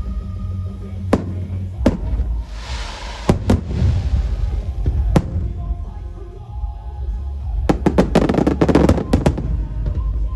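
Aerial fireworks bursting: sharp single bangs every second or so, a hissing crackle about two to four seconds in, and a quick run of rapid cracks around eight to nine seconds, over a steady low rumble.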